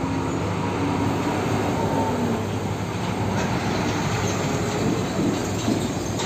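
Fuel tanker truck driving slowly past close by: the steady running of its diesel engine mixed with tyre and road noise.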